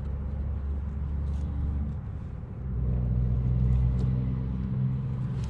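Low, steady rumble of a running car engine, growing louder about two and a half seconds in, with a few faint clicks.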